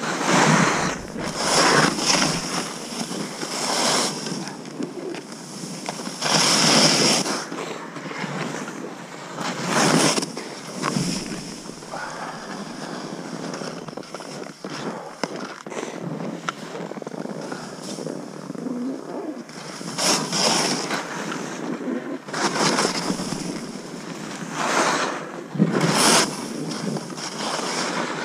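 Skis hissing and whooshing through deep snow in repeated swells as the skier turns down the slope, over wind rushing across the microphone.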